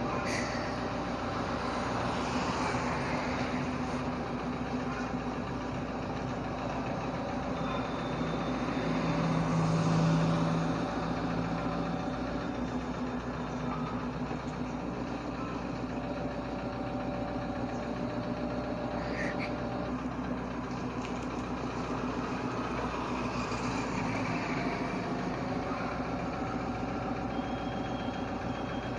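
Toyota Innova's engine running steadily at low revs as the minivan creeps along, swelling briefly about ten seconds in.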